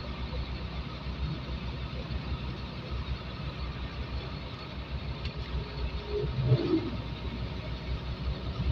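Steady, pulsing low rumble of a Hino truck's diesel engine and road noise, heard inside the cab while driving. A brief louder sound comes about six and a half seconds in.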